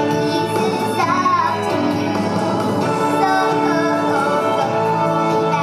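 A young girl singing along to an upbeat song's backing track.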